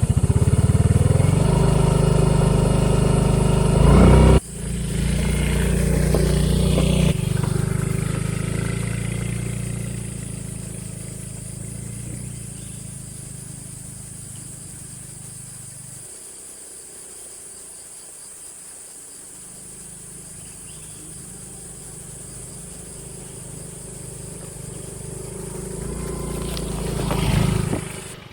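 A motor vehicle engine, most like a motorcycle, running loud and close with an abrupt change about four seconds in, then fading away over the next ten seconds. Near the end an engine grows louder again before the sound cuts off.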